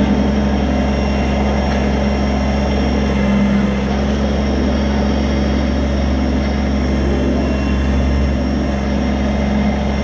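Kubota BX23S tractor-loader-backhoe's three-cylinder diesel engine running steadily while the backhoe boom is swung and worked.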